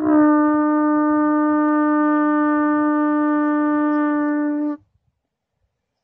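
Long natural horn blown in one loud, steady held note, rich in overtones, bending up slightly into pitch as it starts. The note stops abruptly about three-quarters of the way through.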